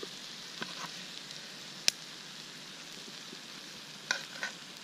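Beef strips and green beans sizzling in a cast-iron skillet, cooking in the beef's marinade juices, with a steady frying hiss. Metal tongs click against the pan a few times, the sharpest click a little before two seconds in.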